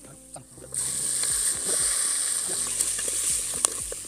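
Chicken pieces going into hot oil and masala in a steel pot: a sudden sizzle starts about a second in and keeps going while a steel ladle stirs, with a few sharp clicks of the ladle against the pot.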